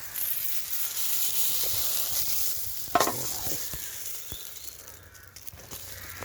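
Pizza sizzling as it cooks over a campfire, a steady hiss that fades in the second half. A single sharp knock comes about three seconds in.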